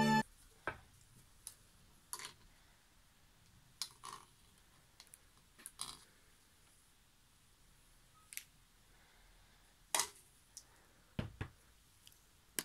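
A dozen or so scattered light clicks and knocks from handling a homemade flower press of wooden boards clamped between metal bars with washers and threaded rods.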